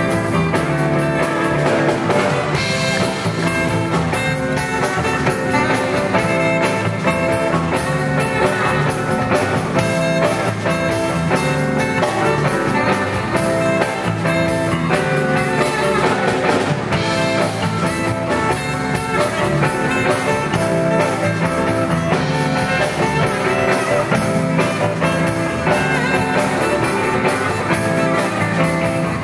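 Live blues-rock band playing, with a tenor saxophone over electric guitar and drum kit.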